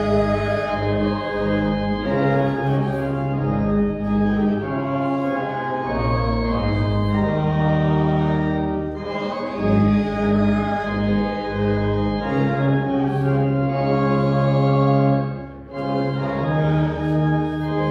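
Church organ playing a hymn in held chords that change every second or two, with a few women's voices singing along.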